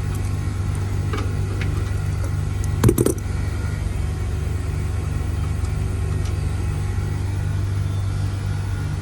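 Carrier 25VNA heat pump outdoor unit running under its inverter compressor and fan: a steady low hum with a faint throb about four times a second. A short sharp clatter cuts in about three seconds in.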